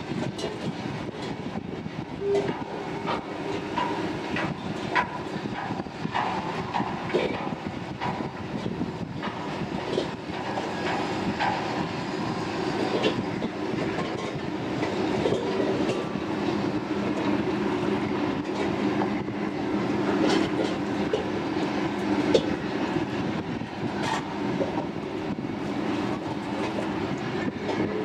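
Ship engines running with a steady low drone, with frequent light clicks and rattles throughout.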